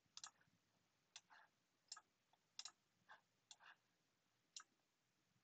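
Faint computer mouse clicks, about six at irregular intervals, several with a softer second click just after, as items are picked on screen.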